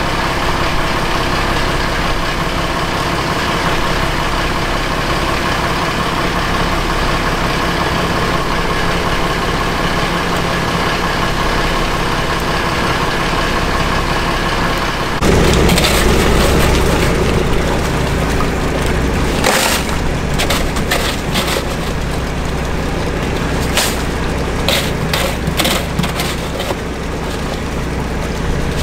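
Fishing boat's engine idling steadily. About halfway through it gets louder, and a run of sharp knocks and rattles follows over it.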